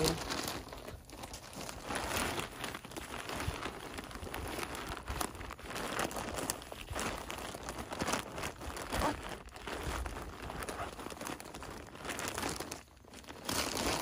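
Plastic bag of potting mix crinkling as it is tipped and shaken, with the potting mix pouring out of it; the crackling dips briefly near the end.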